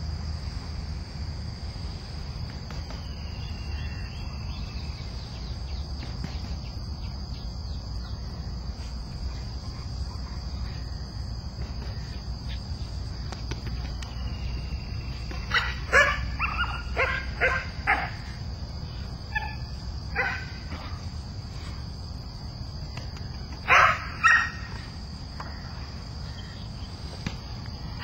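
Young Belgian Malinois barking in short bursts. About halfway in comes a quick run of five or six barks, then a few scattered ones, then two loud barks near the end. The bark is light and friendly-sounding: the trainer calls it too friendly, not yet aggressive.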